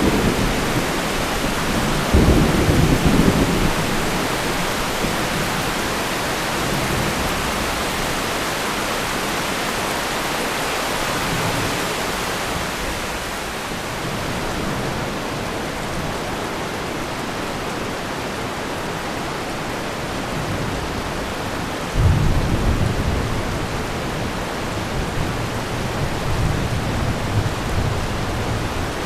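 Thunderstorm: heavy rain hissing steadily. A sudden rumble of thunder comes about two seconds in, and another comes about 22 seconds in and rolls on to the end.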